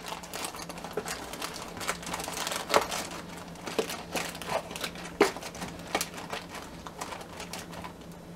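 Crinkling with irregular light clicks and scrapes as brown sugar is scooped and leveled off in a quarter-cup measure.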